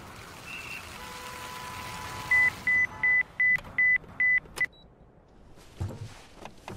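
Digital alarm clock beeping, about seven short, evenly spaced beeps at one high pitch, cut off with a click as it is slapped off. Before it comes steady city street traffic hum, and near the end there is a soft low thump.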